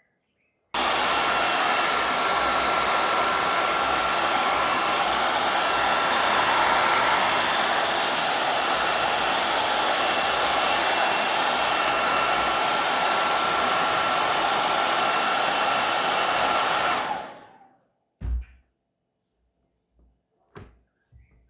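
Hair dryer blowing steadily, with a faint whine in its rush, used to heat and soften the glue on a plastic case. It switches on abruptly about a second in and winds down near the end, followed by a single short knock.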